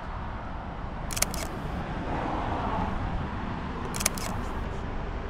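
Two camera shutter clicks from a Leica M11 Monochrom, about three seconds apart, each a quick double click, over a steady outdoor background hiss and rumble.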